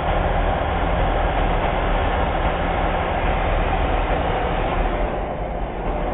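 Steady mechanical running noise from a Mercedes-Benz bus with its engine running, heard from underneath the chassis, with a low rumble throughout and slightly duller for a moment near the end.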